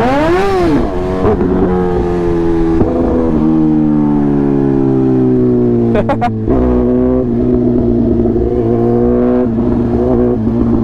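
Sport motorcycle engine under way: a quick rev up and back down just after the start, then running steadily while its pitch slowly sinks, with a brief break about six seconds in.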